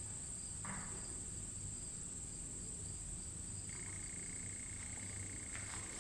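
Faint steady chorus of crickets, a high continuous trill, with a second, lower trill joining a little past halfway through. A brief soft rustle about a second in.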